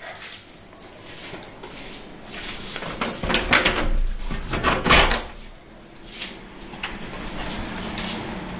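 A house door being opened, with scraping and rustling sounds.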